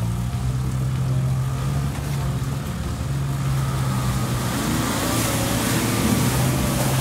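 Toyota Land Cruiser J100's engine running under load as it drives through shallow muddy water, with water splashing and the revs rising and falling about five seconds in.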